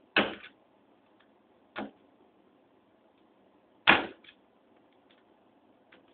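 Bump key in a mortise lock cylinder being struck with a bump hammer. There are three sharp knocks, loud ones about a quarter-second in and near four seconds and a lighter one near two seconds, with faint clicks of the key and pins between them.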